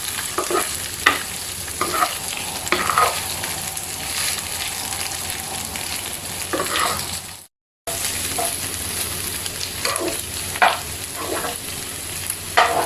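Chicken pieces frying with sliced onion in coconut oil in a pan, sizzling steadily, while a utensil scrapes and knocks against the pan as it is stirred. The sound drops out completely for a moment about halfway through.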